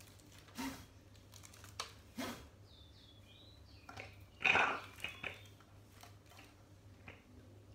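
Handling noises: a few short rustles and knocks as objects are moved about, the loudest about four and a half seconds in.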